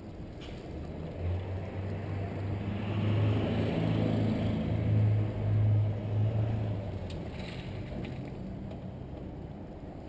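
A low mechanical hum, like a motor running, that rises over a couple of seconds, holds for about four seconds and then fades away, with a few faint clicks.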